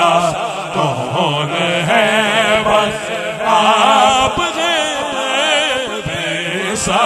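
Devotional naat singing by male voices: a long, drawn-out line with a wavering, ornamented melody, swelling about halfway through, over a steady sung drone held underneath.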